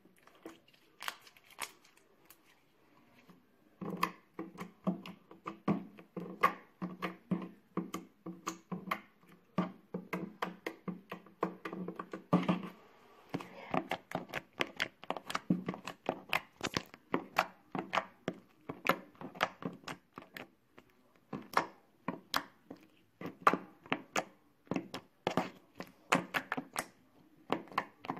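Soft pink slime squeezed and pressed in the hands, giving off a quick, irregular run of loud clicks and pops, several a second, starting about four seconds in.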